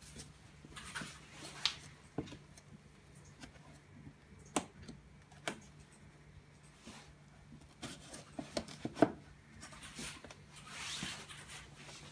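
Corrugated cardboard being handled: a display box's header card sliding and rubbing in its slot, with scattered taps and knocks, a quick cluster of them about eight to nine seconds in, and a longer scraping rub near the end.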